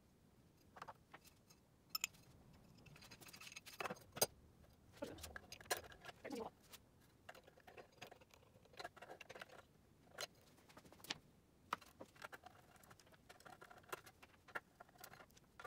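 Faint handling noises: scattered metallic clicks, taps and short scrapes as an aluminium sanding disc is fitted onto a bench belt-and-disc sander and fastened with a small hand tool.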